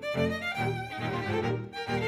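Instrumental background music, pitched notes changing several times a second.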